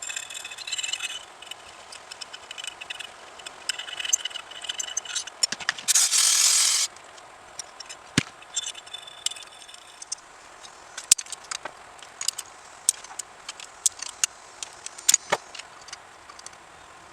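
Small metal parts clinking, tapping and scraping during hands-on carburettor work, with a steady hiss of about a second a little past the middle.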